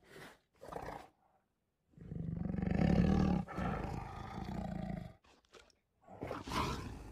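Recorded tiger roar from Google's 3D augmented-reality tiger, played by the phone: one long roar starting about two seconds in and lasting some three seconds, then a second roar starting about six seconds in.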